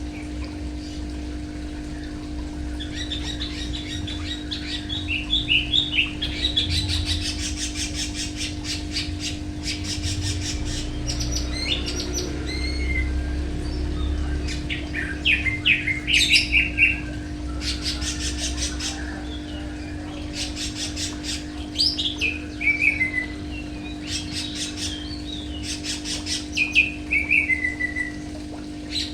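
Caged songbirds singing in repeated phrases, each a fast chattering trill that ends in downward-slurred whistles, over a steady low hum.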